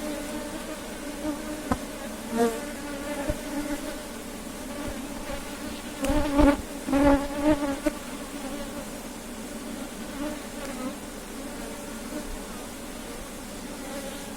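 Steady hum of many honey bees at an opened hive, with louder buzzing passing close about six to eight seconds in and a few light knocks.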